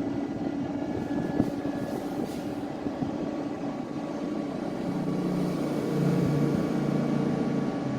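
Daikin FT25BXV14 1 PK split air conditioner running: a steady whir with a hum and a faint click about a second and a half in, and a lower hum joining about five seconds in.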